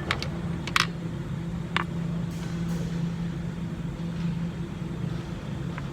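A vehicle engine idling with a steady low hum. Over it come a few sharp metallic clicks and taps in the first two seconds, from a wheel-speed (ABS) sensor and its fittings being handled and fitted at the wheel.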